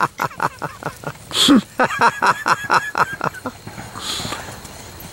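Tennessee Walking Horse's hoofbeats on grass and dirt at a quick, even walk, about six beats a second. About a second and a half in there is a brief louder noise and a short break in the beats, and the hoofbeats fade out in the second half.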